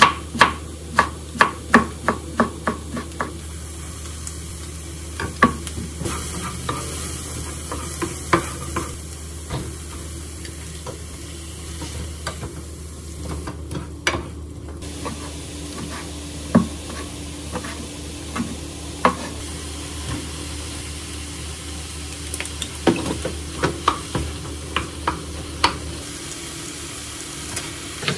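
A kitchen knife chopping enoki mushrooms on a wooden cutting board: quick taps, about three a second, for the first few seconds. Then a wooden spoon mashing tofu and stirring it with rice in a frying pan, with scattered knocks of the spoon against the pan and a light sizzle.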